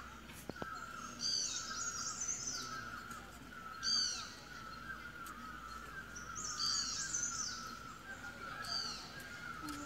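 Wild birds singing in the trees: several clusters of quick, high-pitched song phrases, over a steady stream of lower repeated chirps from other birds.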